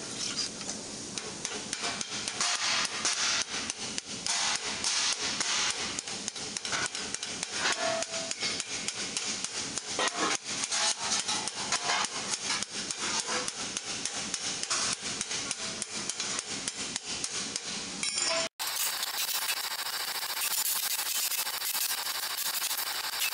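Rapid, steady hammer blows on red-hot sheet steel over a stake anvil, raising an armour gauntlet's hourglass cuff and driving the metal towards the wrist. The hammering stops abruptly near the end.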